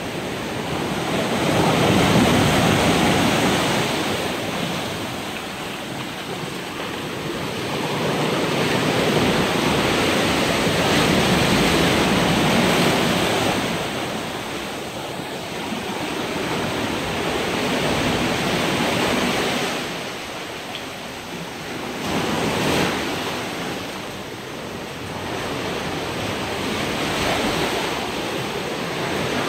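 Ocean waves breaking and washing in foam over rocks and sand, the surf swelling and fading in slow surges every several seconds.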